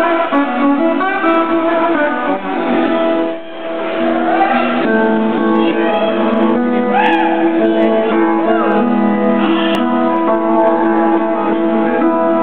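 Slide guitar playing a slow line with sliding pitch glides over held notes, live on stage.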